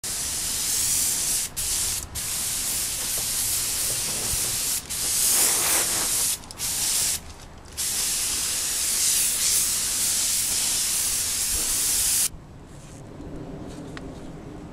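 Gravity-feed compressed-air spray gun spraying red paint: a steady hiss of air and paint in several passes, with short breaks where the trigger is let go. The spraying stops about twelve seconds in.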